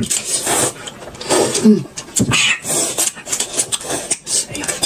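A person slurping Chongqing noodles from a bowl in a series of noisy pulls, with chewing between them.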